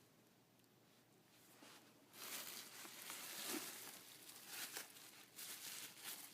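Packaging being handled and crinkled, rustling in uneven spurts with short pauses, starting about two seconds in.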